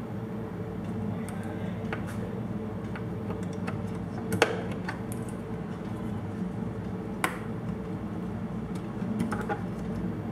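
Small clicks and taps of a hand tool against a CR2032 coin cell and its metal holder on a motherboard as the cell is prised out, with two sharper clicks about four and seven seconds in, over a steady low hum.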